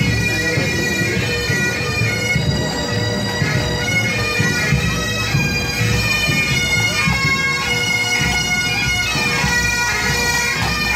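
Pipe band playing: massed Highland bagpipes sounding a steady drone under the chanter melody, with drums beating beneath.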